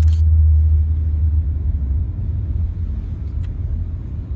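Low rumble of a Ford Fusion heard from inside its cabin as it moves off: engine and road noise, loudest for the first second and a half and then easing. A short sharp click comes right at the start.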